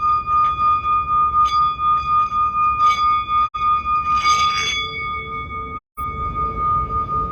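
Singing bowl ringing in a sustained high tone with overtones and a rapid pulsing waver; about four and a half seconds in there is a brief swish and a lower pulsing tone joins. The sound cuts out completely twice for an instant.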